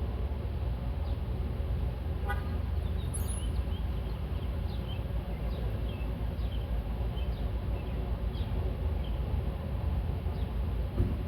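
Brief car horn toot about two seconds in, over a steady low rumble, with birds chirping repeatedly in short falling notes.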